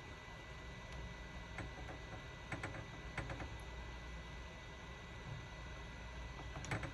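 Hot air gun blowing steadily, a low hum and hiss with a faint high whine. A few light clicks and taps come in small clusters, from handling the part on the heated circuit board.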